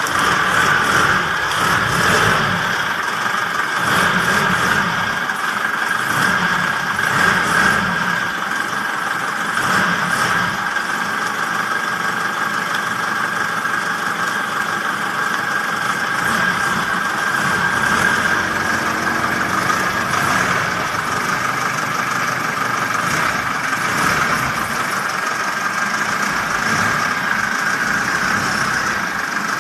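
Toyota BJ40 diesel engine, swapped into an FJ40 Land Cruiser, idling steadily.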